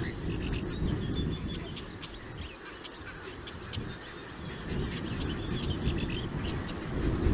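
Small birds chirping and calling busily, many short overlapping calls, over a low rumbling noise that eases for a second or two mid-way.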